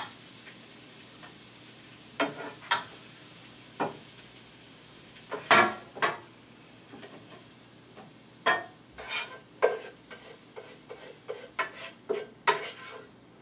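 A spoon scraping and knocking in a frying pan as fried cabbage and bacon are scooped out into a serving bowl: short scrapes and taps at irregular intervals, more of them near the end as the pan is tipped and scraped out. A faint sizzle runs underneath from the still-hot pan.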